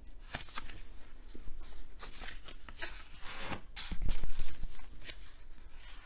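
Pages of a large illustrated art book being turned one after another, the paper swishing and rustling, loudest about four seconds in.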